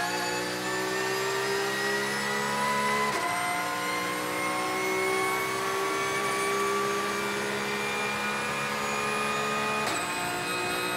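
Porsche 911 GT3 Cup (991.2) race car's 4.0-litre flat-six at full throttle, heard from inside the cockpit, pitch climbing through the gears. It upshifts twice, about three seconds in and again near the end, the pitch dropping at each shift and then rising again.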